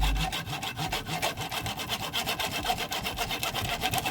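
A small saw cutting into a toy figure held in a vise: an even rasping sound in fast, regular strokes, about nine a second.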